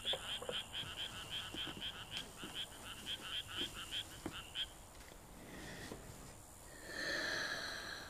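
A small animal calling in a fast, even run of short high chirps, about five a second, that stops a little after four and a half seconds in. A short soft hiss follows near the end.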